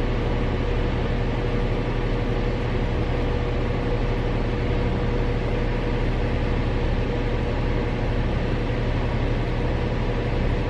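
Steady hum of a car's cabin while the car waits in a drive-thru, with a faint steady tone over a low rumble.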